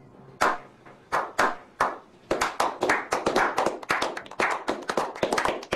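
A small group of men clapping their hands: a slow clap. Single claps come about half a second apart at first, then speed up and overlap into quick clapping from about two seconds in.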